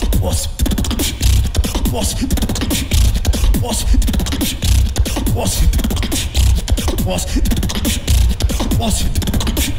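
Competitive solo beatboxing: rapid vocal kicks, snares and clicks over a continuous deep bass, in a steady rhythm.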